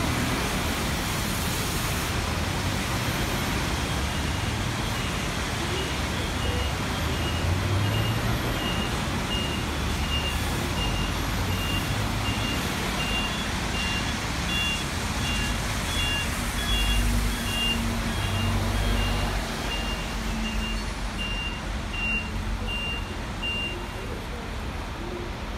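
Traffic on a wet road: steady tyre hiss with bus and truck engines rumbling past now and then, and a high electronic beep repeating about twice a second through most of it.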